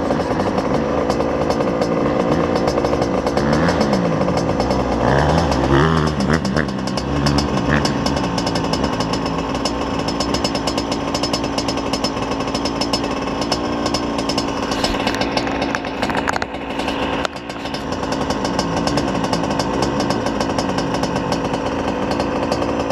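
Yamaha YZ85 dirt bike's two-stroke single-cylinder engine running while being ridden, its revs rising and falling with the throttle; the sound dips briefly a little past halfway before picking up again.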